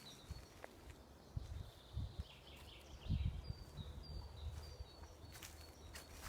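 Faint small birds chirping, short high calls repeating every second or so, over low rumbling and a few soft thumps.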